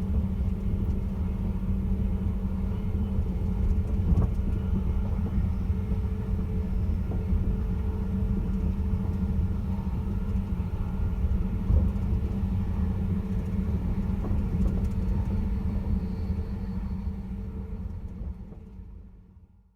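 Caledonian Sleeper train in motion: a steady low rumble with a few light knocks, fading out over the last few seconds.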